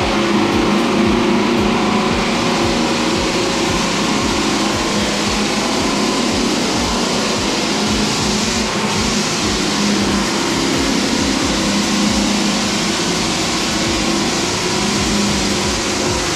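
Floor sanding machine running steadily and loudly, a continuous grinding drone with a low hum that wavers slightly in pitch.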